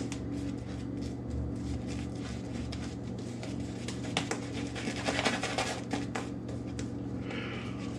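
Boar-bristle shaving brush scrubbing lather into stubble on the cheek and jaw: a fast, scratchy rustle of bristles on skin, busiest about four to six seconds in.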